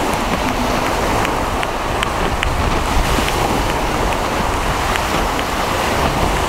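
Steady wind rushing over the microphone and surf washing, with a few light clicks.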